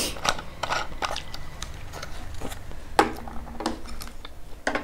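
Plastic water bottle being handled, its thin plastic crinkling and clicking in short bursts, with a sharp knock about three seconds in as it is set down on the wooden table.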